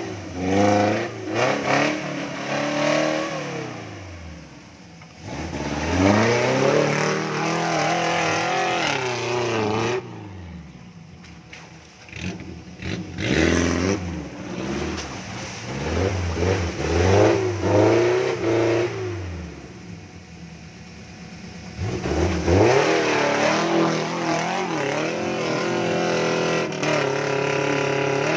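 Suzuki Jimny's engine revving hard in repeated bursts, the pitch climbing and falling each time, with short lulls between bursts as it struggles through deep mud.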